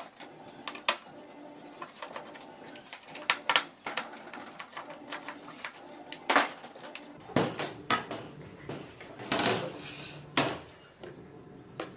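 Screwdriver clicking against screws in a plastic solar street light housing, with tools and parts knocking on a glass tabletop. Louder clattering comes in the second half as the plastic housing is lifted apart.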